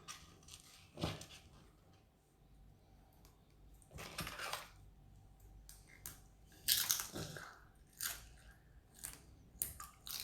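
Potato chips being crunched while eaten, in several short irregular crunches, the longest about four seconds in and again near seven seconds.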